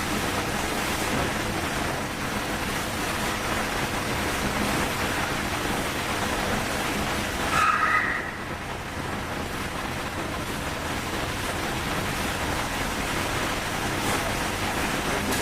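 Steady hiss of air or running machinery, with a short electronic beep of several stacked tones about eight seconds in.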